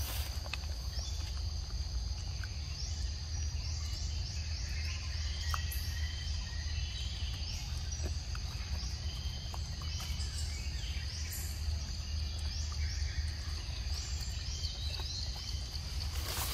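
Tropical forest ambience: a steady high drone of insects with repeated short rising bird chirps, over a steady low rumble.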